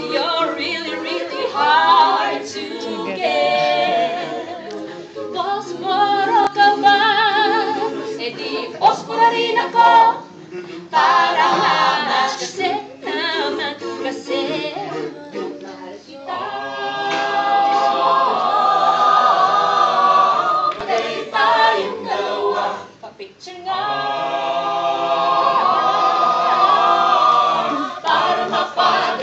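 Mixed a cappella choir singing without accompaniment, a woman's solo voice leading over the group's harmonies, with fuller held chords in the second half.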